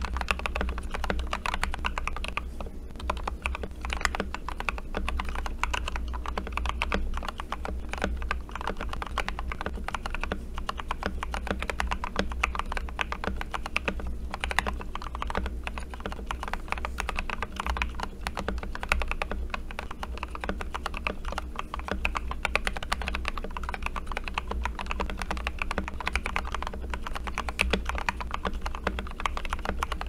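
Steady, continuous typing on a RK68 Plus mechanical keyboard fitted with lubed Gateron Yellow linear switches, XDA-profile keycaps and foam-dampened case: a rapid stream of muted keystroke clicks.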